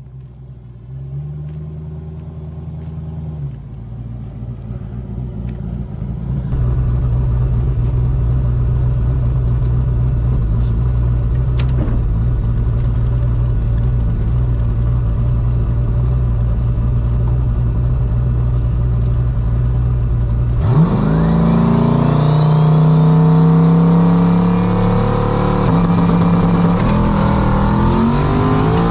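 Turbocharged 5.3-litre LS V8 running at a steady, even pitch, then about 21 seconds in going to full throttle: the engine note climbs sharply with a high whine rising alongside it as the car accelerates hard.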